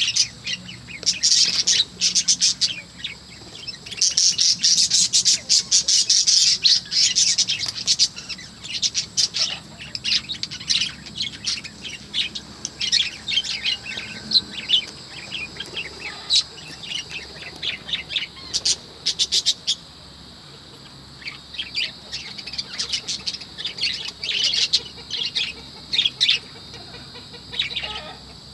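Budgerigars chattering: rapid high chirps and squawks coming in irregular bursts, with a short lull about twenty seconds in.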